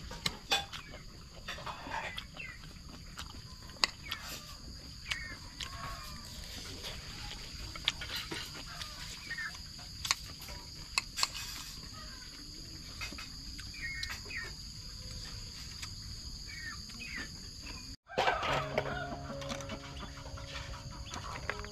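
Chickens clucking now and then over a steady high-pitched hum, with a few sharp clicks. After a brief dropout near the end, background music begins.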